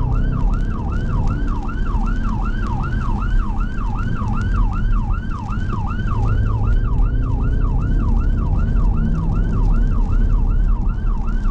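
Emergency vehicle siren on a fast yelp, sweeping up and down about three times a second without a break, over steady low road and engine rumble from the moving car.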